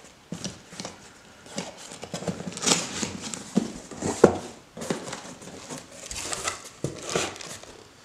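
Cardboard shipping box being opened by hand: irregular scrapes, rustles and knocks as the cardboard is cut and the flaps are pulled open and folded back.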